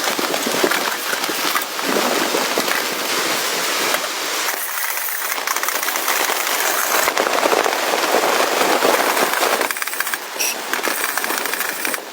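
Wood fire crackling, with a dense run of pops and snaps.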